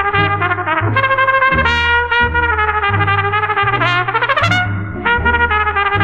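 Trumpet leading a brass ensemble in an instrumental gospel arrangement, over a bass line that moves note by note, with a quick upward sweep about four seconds in. Played from a vinyl record.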